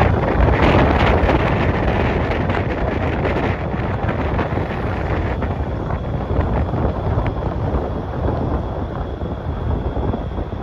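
Wind buffeting the microphone over a steady rush of road and traffic noise from travel along the road. The buffeting is heaviest for the first few seconds, then eases.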